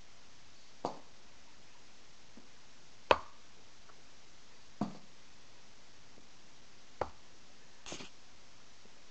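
A cat batting a small cardboard box about on a desk: five short taps and knocks a second or two apart, the loudest about three seconds in. The last one, near the end, is a brief rustle.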